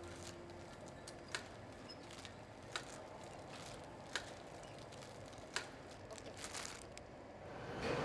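Candy cane packaging machine clicking at an even pace, about once every 1.4 seconds, over a low steady factory hum, with some fainter ticks between. A rising rush of noise comes in near the end.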